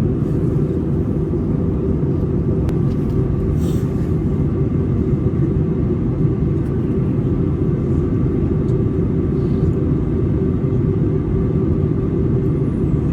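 Airbus A320 cabin noise in flight: a steady, deep rumble of engines and airflow, with a faint steady tone above it.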